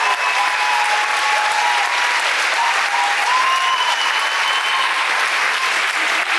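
Audience applauding steadily and loudly, with a few high held calls rising over the clapping.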